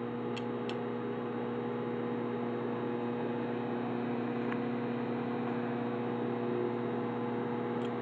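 Microwave oven running: a steady low electrical hum over a light whirring noise, with a few faint ticks about half a second in and again near the end.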